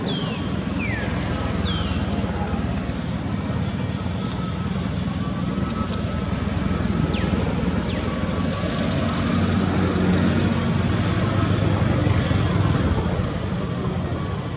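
Steady low outdoor rumble, like vehicle or traffic noise, with a few short high squeaks falling in pitch in the first two seconds.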